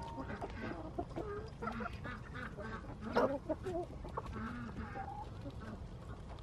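A flock of backyard hens clucking close by: many short clucks and calls overlapping, with one louder call about three seconds in and a longer held call about five seconds in.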